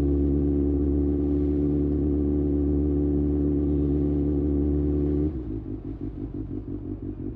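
Kawasaki ZX-6R inline-four engine running at a steady, even pitch. About five seconds in it drops abruptly to a quieter, lumpier pulsing run.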